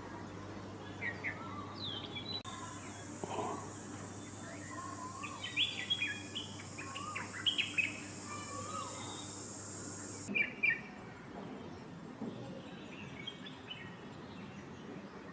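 Wild birds calling: many short whistled chirps and quick sliding notes, scattered and irregular. A steady high buzz sits under them for most of the first two-thirds and cuts off suddenly near the end of that stretch.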